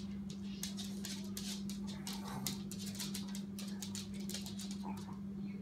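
A beagle's claws clicking irregularly on a hardwood floor as it moves about, over a steady low hum.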